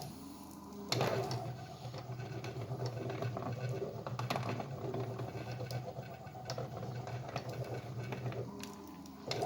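Homemade CNC machine's stepper motors running as the axes move, a steady low hum with light clicks. It starts suddenly about a second in and stops shortly before the end.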